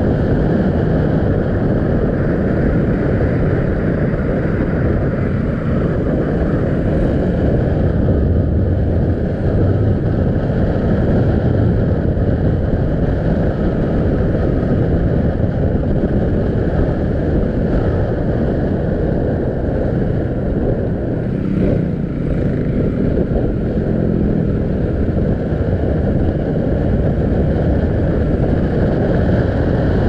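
Bajaj Pulsar NS200 single-cylinder engine running steadily while riding at cruising speed, mixed with wind rushing over the camera microphone.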